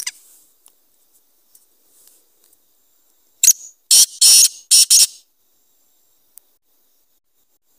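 Black francolin calling: one loud call of about five scratchy, high notes packed into under two seconds, starting about three and a half seconds in. A short click at the very start.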